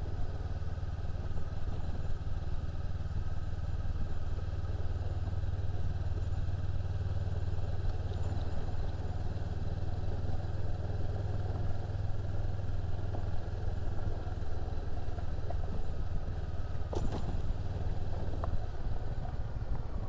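Honda CB500X's parallel-twin engine running steadily under way, a constant low hum, with road noise from riding on a dirt road.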